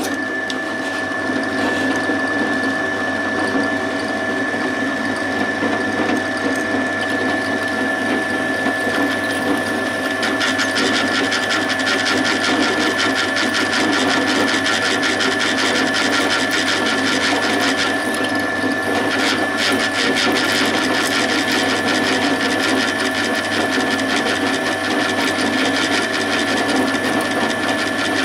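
Pillar drill running with a steady whine while a 5 mm bit drills holes in an aluminium plate; the sound grows rougher from about ten seconds in.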